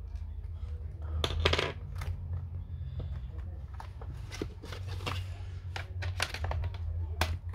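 Small metal and plastic parts of an Apple Time Capsule being handled during disassembly: irregular clicks, taps and short scraping rattles, the loudest about a second and a half in and near the end, over a steady low hum.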